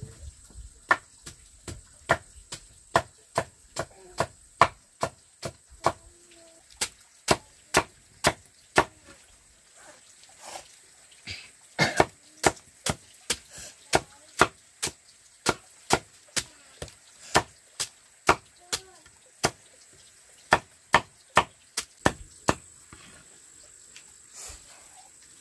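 Machete chopping through peeled white roots onto a wooden block: a long run of sharp knocks, about two a second, with a couple of brief pauses.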